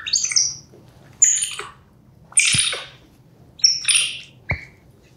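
White-faced capuchin monkey calling: five high-pitched squeaky calls a little over a second apart.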